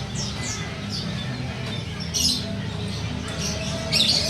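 Lovebird giving short, high chirps, three brief bursts about two seconds apart, over a steady low background hum.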